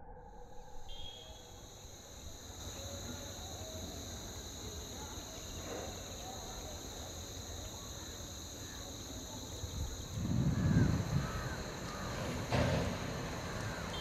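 Steady high-pitched insect chirring from grassland, with faint scattered bird chirps over it. About ten seconds in, a louder low rumble, then a short knock.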